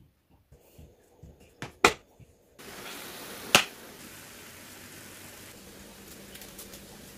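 Two sharp clicks, about two seconds in and again about a second and a half later, over steady room noise with a faint low hum near the end.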